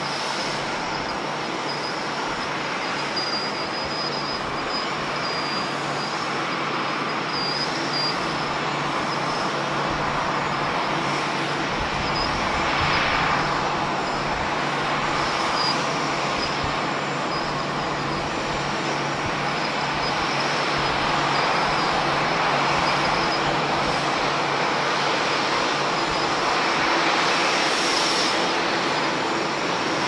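Boeing 787's Rolls-Royce Trent 1000 turbofans at taxi idle: a steady rushing hum with a thin high whine, growing a little louder in the second half as the jet taxis closer.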